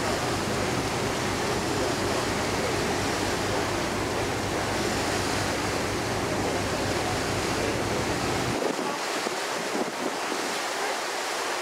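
Steady rush of wind over the microphone and water noise on a moving ferry's open deck. A low rumble underneath cuts out suddenly about eight and a half seconds in, while the hiss carries on.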